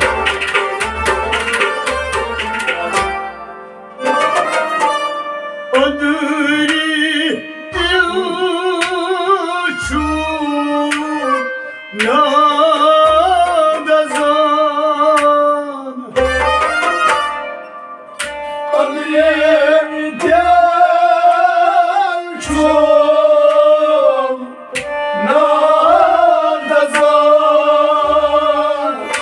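Kashmiri folk ensemble performing a sung kalam: men's voices with a wavering vibrato, accompanied by harmonium, plucked rubab, bowed sarangi and hand-drum strokes. The first few seconds are instrumental, with quick rubab strumming over drum beats. The singing comes in about four seconds in, in phrases of a few seconds each.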